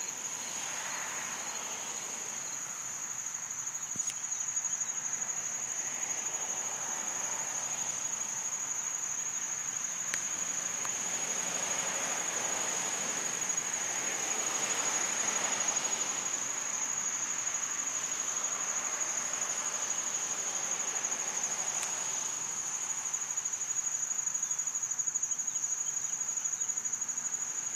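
Insects trilling in one continuous high-pitched drone, with a fainter hiss that swells and fades behind it.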